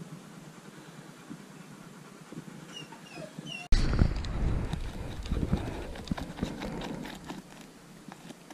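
A Rottweiler digging in dry dirt with its front paws: quick, uneven scratching and scraping of earth, loud and close, starting suddenly just under four seconds in and easing off near the end. Before that, faint outdoor background with a few short bird chirps.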